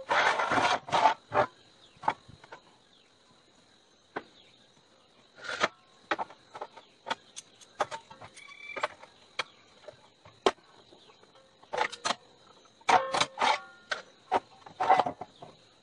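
Steel plates and angle pieces knocking and clanking against each other and a steel workbench as they are fitted together by hand into a rectangular box. The sound is a series of sharp knocks, some ringing briefly, with quieter gaps between the clusters.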